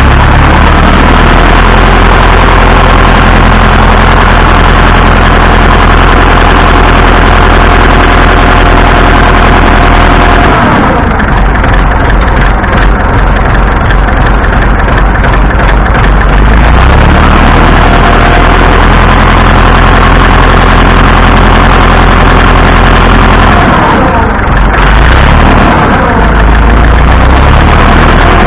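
Massey Ferguson 165 tractor engine running with a knock, its speed changing a few times. The owner takes the knock for a worn connecting rod ("Johnny Rod knocking his way out").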